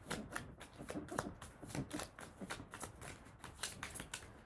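A deck of Lenormand cards being shuffled by hand: a quick, irregular run of small card flicks and taps.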